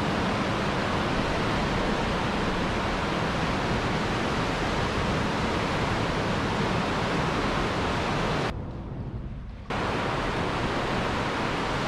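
Steady rush of muddy floodwater still flowing down the desert wash three days after a flash flood. About 8.5 seconds in, the hiss briefly loses its upper range and dips for about a second before returning.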